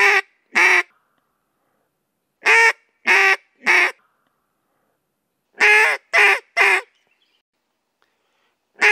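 A duck call blown in the basic three-note cadence: three quacks about half a second apart, then a pause of about two seconds, repeated. Two full sets fall in the middle, with the tail of one set at the start and the first note of the next near the end.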